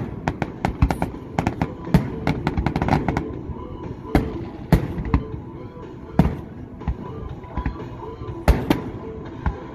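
Aerial fireworks shells bursting: a rapid run of bangs and crackles for the first three seconds or so, then single booms every second or two.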